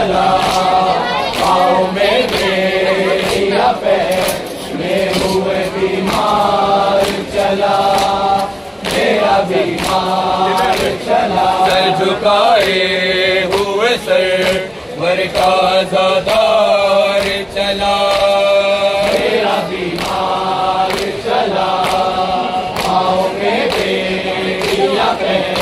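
A crowd of men chanting a nauha, a Muharram lament, in unison, phrase after phrase, with sharp slaps of matam (chest-beating) keeping time.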